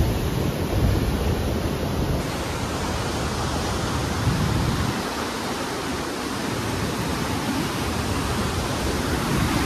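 Koshi River floodwater rushing and churning past the barrage piers and through the open sluice gates: a steady, loud wash of turbulent water with an uneven low rumble beneath.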